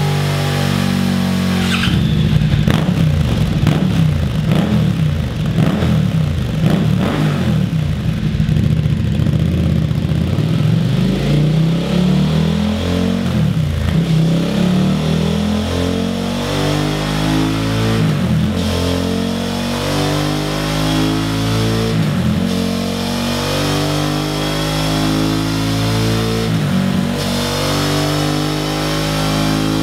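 Suzuki SV650's 645 cc V-twin revved on a rolling-road dyno, heard through a Scorpion Serket Parallel slip-on silencer and then, partway through, a Serket Taper silencer, both with the removable dB killer fitted. The revs climb over a few seconds and drop back sharply, again and again.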